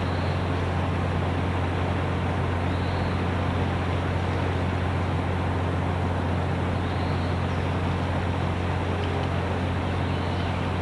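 Steady low engine-like hum with a few fixed tones, under a constant hiss of heavy rain, with a few faint high chirps.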